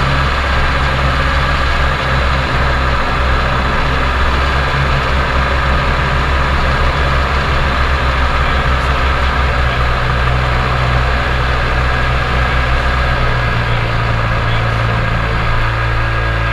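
Snowmobile engine running steadily as the sled rides along a snowy trail. Near the end the engine note changes.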